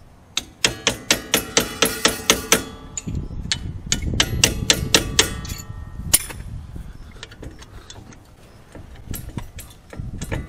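Hammer striking a pin punch to drive the brake pad retaining pin out of an STI brake caliper. There are two quick runs of sharp metallic taps at about six a second, each tap with a short ring, then a few scattered taps near the end.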